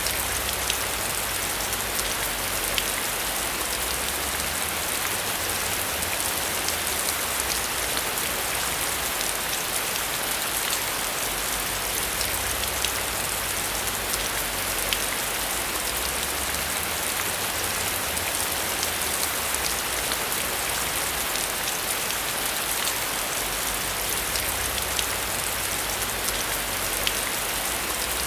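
Steady heavy rain falling, with many individual drop impacts ticking over a constant hiss.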